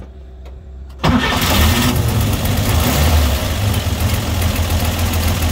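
A 235 cubic-inch Chevrolet straight-six with dual Rochester carburetors and headers into dual exhaust fires up abruptly about a second in. It then runs steadily at idle with a deep exhaust note.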